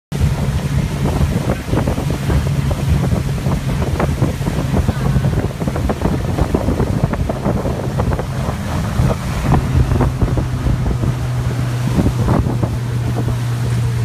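A motorboat's engine running steadily under way, with wind buffeting the microphone and water splashing irregularly against the hull.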